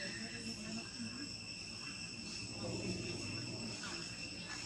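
Steady insect chorus: a few thin, high-pitched tones held without a break throughout.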